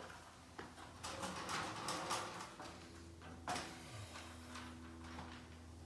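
Handling noises while a metal wall track is positioned: a few light knocks and clicks with some scraping, the sharpest knock about three and a half seconds in, and a faint steady hum from about halfway on.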